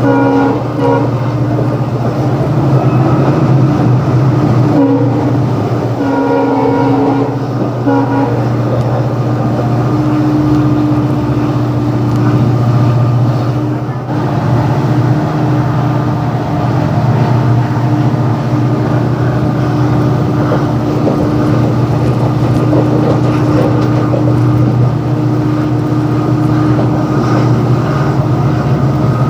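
Moving passenger train heard from the coaches: a steady low rumble, with the WDG4 diesel locomotive's horn sounding in the first second and again in several short blasts about five to eight seconds in.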